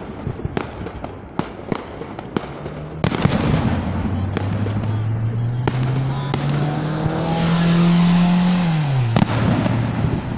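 Fireworks display: repeated sharp bangs and crackles of shells bursting overhead. A car drives past on the road, its engine note rising for several seconds and loudest near the end, then dropping sharply as it passes about nine seconds in.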